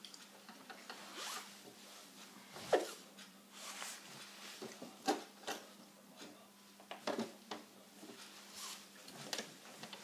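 Fabric being handled and slid into place at a sewing machine: irregular short rustling swishes of cloth with a few small clicks, and a faint steady hum underneath. The machine is not stitching.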